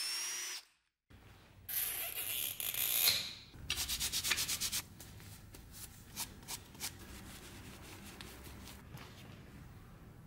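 A drill bit whining as it bores into the horn knife handle, cut off within the first second. Then hand rubbing or sanding: a stretch of scratchy rubbing, a quick run of even back-and-forth strokes about eight a second, and then scattered light clicks and taps.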